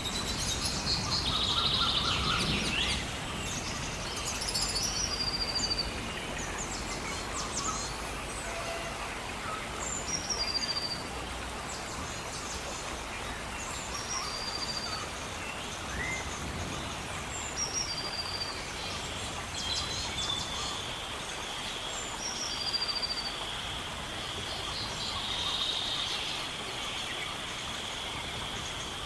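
Tropical forest ambience: many birds calling, with a short high falling call repeated every couple of seconds among chirps and trills. A steady high drone joins about two-thirds of the way through, over a low background hiss.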